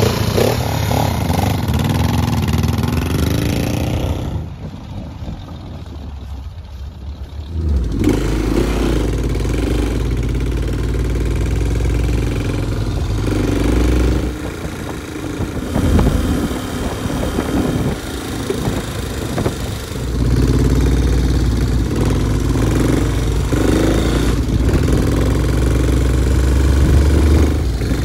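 1971 Honda Scrambler 350's air-cooled parallel-twin engine running as the motorcycle is ridden, its note rising and falling several times with the throttle. There is a quieter stretch from about four to eight seconds in.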